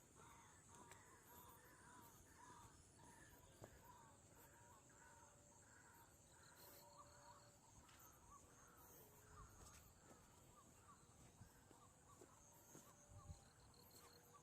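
Faint evening chorus of insects and birds: a steady high insect buzz under rapid, repeated bird chirps at about two to three a second.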